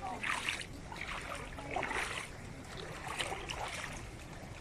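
Water sloshing and splashing in irregular swishes, about one a second, as someone wades through shallow floodwater.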